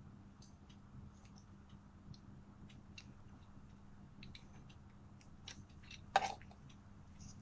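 Small plastic clicks and taps from a black plastic phone clamp being handled and fitted together, with one louder snap about six seconds in. A steady low hum runs underneath.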